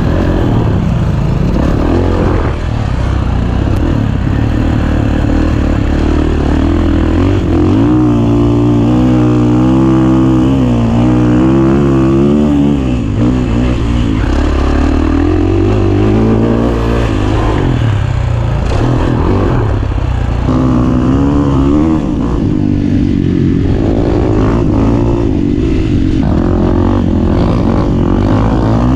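Dirt bike engine being ridden hard around a motocross track, revving up and dropping off again and again, its pitch climbing and falling with each burst of throttle.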